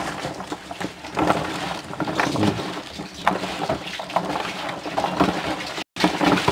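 Hands kneading and squeezing salted slices of raw green papaya in a plastic basin: irregular wet squishing and rubbing as the slices are worked to draw out their sap.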